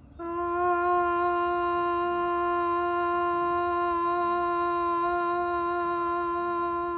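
A woman singing a long, steady open 'ah' vowel on one held note, as a vocal exercise sung on a single breath. It starts just after the beginning and holds without a break in pitch or loudness.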